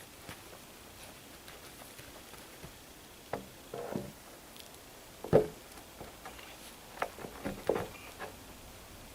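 Scattered light knocks and clicks of things being handled, with one sharp thump about five seconds in and a quick run of knocks near the end.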